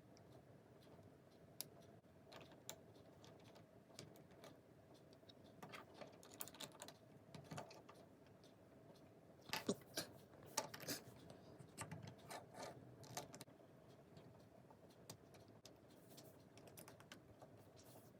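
Faint, irregular clicking and rattling of plastic LEGO pieces being handled and snapped together, with a louder run of clicks about ten seconds in.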